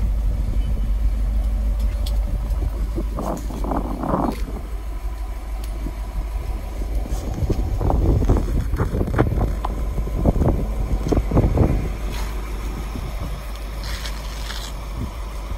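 1940 Ford pickup's 221 cubic-inch flathead V8 idling with a steady low rumble, overlaid by irregular gusts of wind buffeting the microphone.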